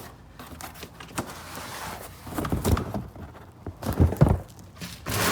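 Rustling and clattering from car parts being handled and moved about in storage bins, with a few sharp knocks about four seconds in.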